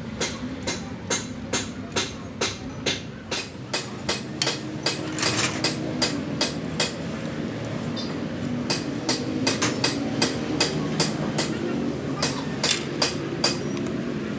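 Hammer blows in steady runs of about two a second, with short pauses a few seconds in and about halfway through.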